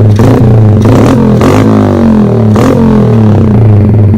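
Small dirt bike engine running close by, revved up and back down twice, about a second and a half in and again near three seconds. Its owner says this engine will not idle.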